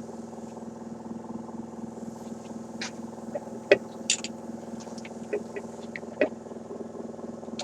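Small electric air pump and vacuum motor running with a steady hum, used to blow and suck metal filings off a car radio, with scattered light clicks and taps throughout.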